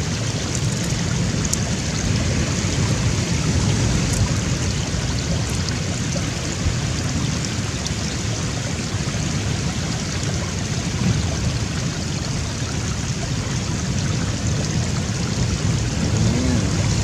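Rough sea surf washing against a rocky shore: a steady, even rush of water noise with no single wave standing out.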